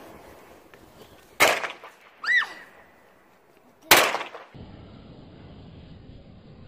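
Firecrackers going off in two sharp, loud bangs about two and a half seconds apart, with a short high squeal that swoops up and down between them.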